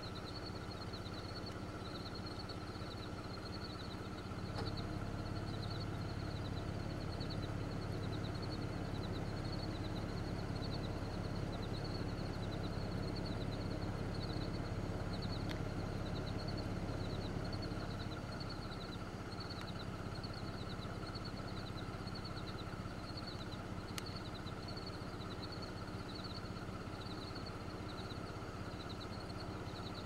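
Rural outdoor ambience: a steady low hum that grows louder a few seconds in and eases back near the middle, under a high chirping repeated at an even pace, over and over.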